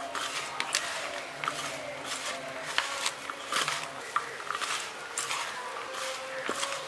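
Soaked soya chunks being mixed by hand with cornflour, flour and ground spices: irregular squishing, rustling strokes, about one or two a second.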